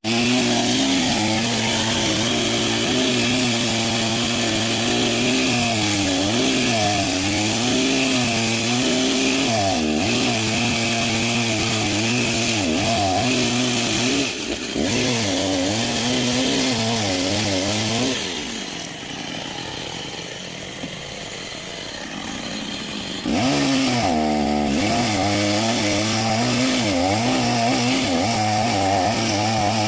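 Two-stroke chainsaw running hard as it planes the face of a wooden plank, its engine pitch wavering as the bar bites and eases. About eighteen seconds in it drops to a lower, quieter running for some five seconds, then revs back up and carries on cutting.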